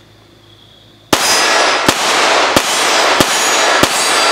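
Remington RM380 .380 ACP pocket pistol fired in quick succession with lightweight 56-grain ARX rounds: a string of sharp shots about two-thirds of a second apart, starting about a second in, each ringing out into the next.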